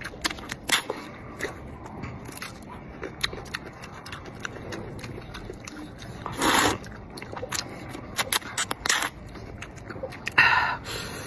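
Close-up eating sounds of rice noodles being slurped and chewed: wet clicks and lip smacks throughout, with a loud slurp about six and a half seconds in and another short, loud mouth sound near the end.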